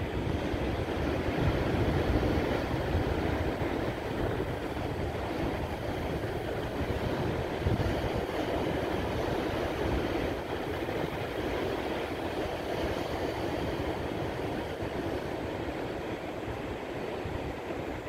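Sea waves breaking and washing over granite shore rocks: a steady rushing surf that swells now and then as a wave hits.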